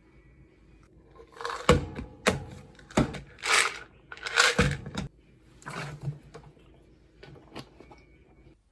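Small household objects being handled on a counter: a jar lid and a plastic supplement bottle being closed and opened. The sound is a run of sharp clicks and knocks with two short rattling bursts, then a few lighter clicks near the end.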